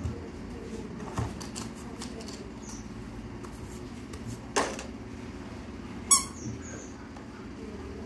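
Plastic toys being handled, giving a few sharp knocks, with a short squeak about six seconds in that is the loudest sound, over a low steady hum.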